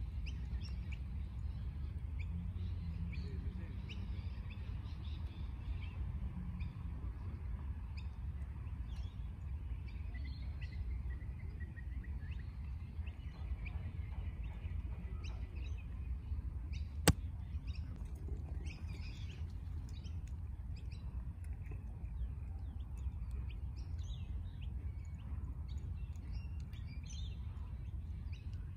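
Open-air ambience: many short bird chirps scattered throughout over a steady low rumble. A single sharp click about seventeen seconds in.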